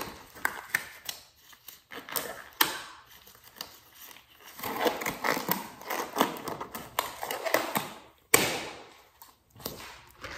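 A disposable glove being pulled onto a hand: rustling and rubbing with many small clicks, and one sharp click about eight seconds in.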